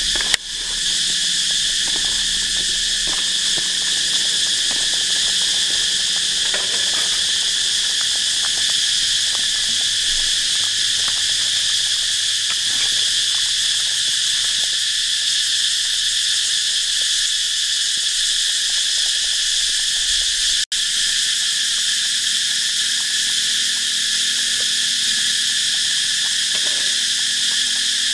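Steady, loud, high-pitched chorus of insects, unchanging throughout. It cuts out for an instant about twenty seconds in.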